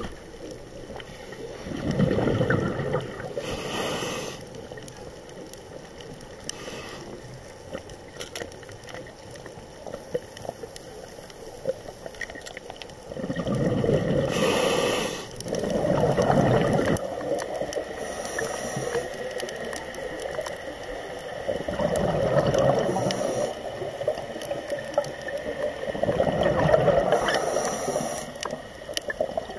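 Scuba regulator breathing heard underwater: several bursts of exhaled bubbles gurgling a few seconds apart, with short hisses of air between some of them.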